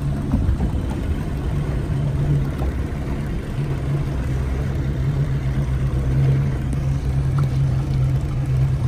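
Speedboat engine running steadily under way, a low even hum with a hiss of wind and water over it.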